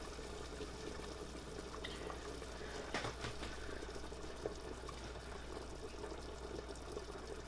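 Pot of fish soup with potatoes bubbling steadily under a glass lid, the heat just turned down after it came to a boil. A light click about three seconds in.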